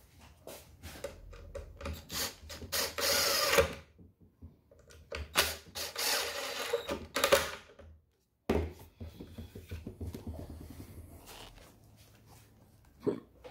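Cordless drill-driver running in two bursts of a couple of seconds each, driving two screws into the edge of a wood-grain cabinet panel. Quieter handling clicks follow, with one sharp knock near the end.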